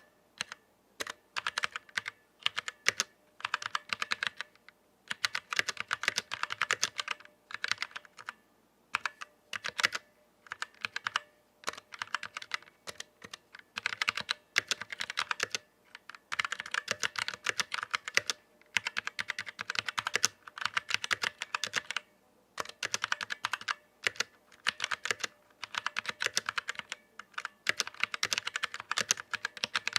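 Typing on a Vortex Series VX7 mechanical keyboard with stock Outemu Brown tactile switches: fast runs of clacking keystrokes in bursts of a few seconds, broken by brief pauses.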